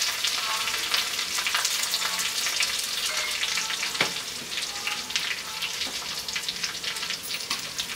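Ginger paste and grated garlic sizzling in hot mustard oil in a steel kadhai: a steady hiss with fine crackling that slowly eases. One sharp click about four seconds in.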